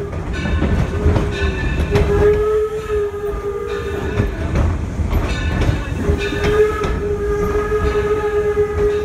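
Steam locomotive Torch Lake's whistle blowing one steady tone: a short toot about a second in, then two long blasts, one at about two seconds and one from about six seconds on, as the train nears a road crossing. Under it runs the low rumble of the moving train.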